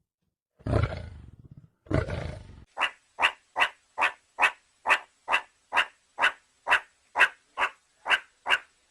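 Two deep animal roars, each starting suddenly and fading away, then a steady run of short, sharp barks, about two or three a second.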